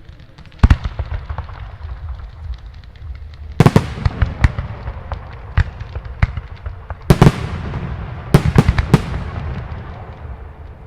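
Aerial firework shells bursting with sharp bangs: one about half a second in, a pair near four seconds, another near seven seconds, and a quick run of several bangs shortly after. Between the bangs comes a low rumble with crackling.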